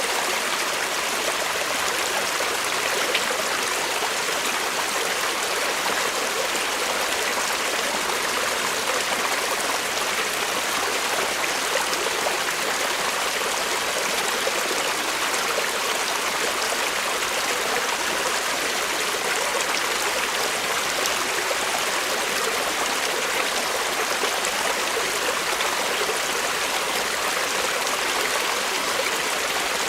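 Forest creek running steadily over stones, a constant rushing and trickling of water.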